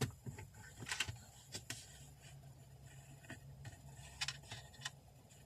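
Faint, scattered small clicks and scrapes of an aux cable and plastic dashboard trim being handled and fitted, over a low steady hum.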